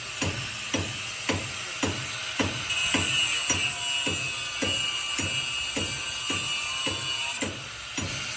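Background music with a steady beat of about two strikes a second.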